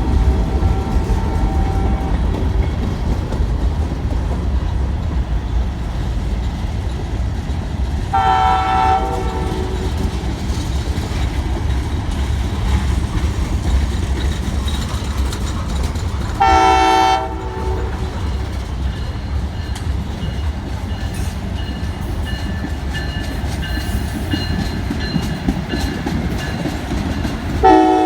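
Freight train rolling past with a steady low rumble of wheels on rail. A train horn sounds in short blasts: one ending about two seconds in, others about eight and sixteen seconds in, and one more near the end.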